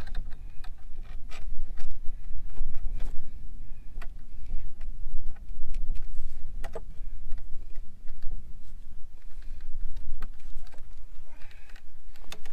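Wind buffeting the microphone in an uneven low rumble, with scattered clicks and scrapes from a stick twisting a fence's wire brace tight around a post.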